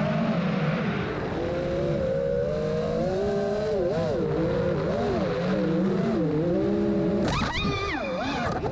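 Brushless motors and 5-inch propellers of an FPV freestyle quadcopter whining, the pitch rising and falling with the throttle. About seven seconds in the pitch jumps sharply higher in a quick punch of throttle.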